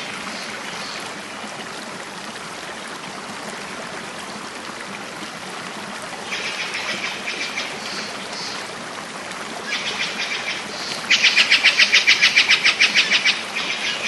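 Small songbirds singing in rapid, high trills, in a few bursts over a steady hiss, with the loudest and longest trill coming about two-thirds of the way through.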